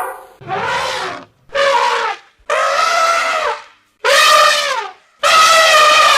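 Elephant trumpeting: five brassy calls in quick succession, each under a second long, several dropping in pitch at the end.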